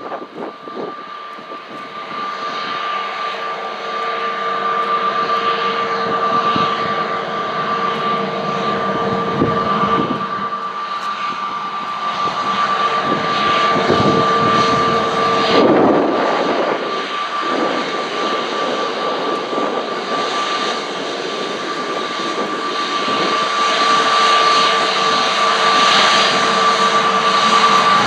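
Airbus A321neo's twin Pratt & Whitney PW1100G geared turbofans at taxi power: a steady whine over a jet rush, growing louder as the airliner taxis toward the listener.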